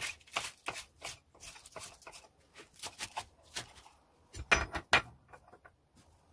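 Kitchen knife chopping lettuce on a wooden cutting board: quick, even strokes about three a second that thin out, with a couple of louder knocks about four and a half seconds in.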